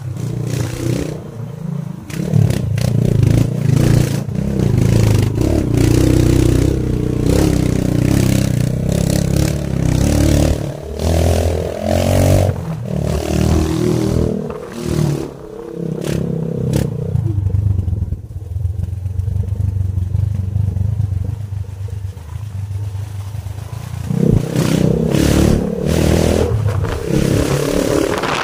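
Motorcycle engine running as it rides a rough dirt track, with clattering and scraping from the bumps. The engine eases off and goes quieter for several seconds past the middle, then picks up again near the end.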